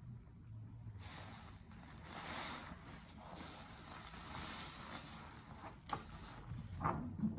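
A soapy sponge squeezed and wrung in a basin of sudsy dish water, giving a wet, hissing squelch of foam and running, dripping water. A few sharper squishes come near the end.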